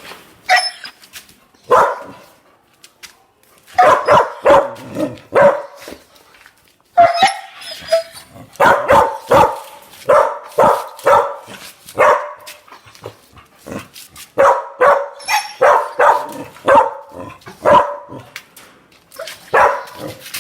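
Dog barking loudly and repeatedly, in runs of several quick barks separated by short pauses.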